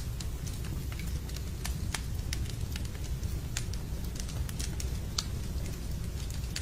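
Wood fire burning in a fireplace: a steady low rumble of flames with irregular sharp crackles and pops from the logs.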